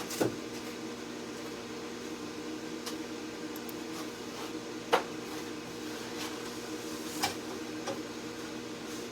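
Steady electric hum of a cutting machine, with a few light clicks and taps.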